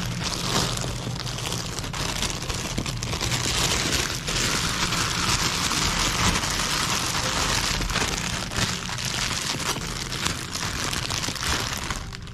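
Electric meat grinder at work, a dense crackling and crunching of something being crushed over a steady low hum.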